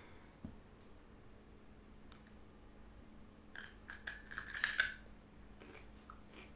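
Crisp, wet crunching and chewing of raw bitter gourd close to the microphone: a sharp snap about two seconds in, a cluster of crunches around the middle, and a few faint clicks after.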